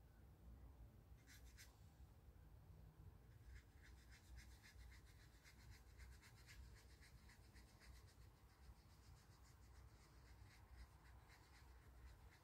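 Faint scrubbing of a watercolour brush mixing paint: two short strokes, then from about three seconds in a steady run of quick strokes, about three or four a second.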